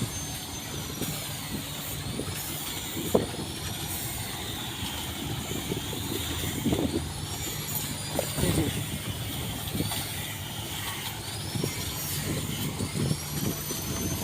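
An engine running steadily with a low hum, with a few short knocks, the sharpest about three seconds in.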